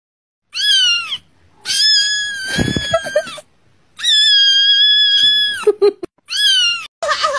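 Grey tabby kitten meowing loudly four times: a short cry, two long drawn-out cries, then another short cry.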